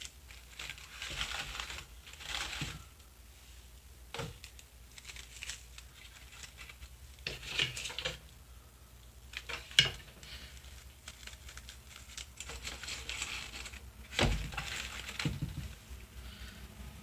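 Handling noise from crafting: light rustling and crinkling of artificial silk flowers and leaves, with a few sharp knocks as a hot glue gun and other items are picked up and set down on the tabletop.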